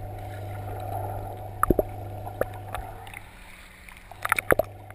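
Water sloshing and splashing over a steady low hum, with a few sharp slaps: one or two early on and a quick cluster near the end.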